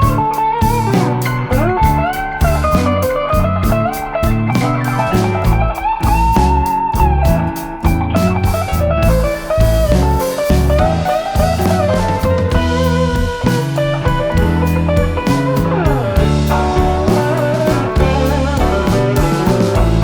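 Background music: electric guitar playing a bending, blues-style lead over bass and drums.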